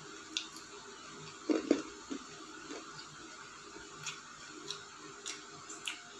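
Chewing crispy fried chicken: scattered crunchy clicks and crackles, with a louder pair of thuds about a second and a half in.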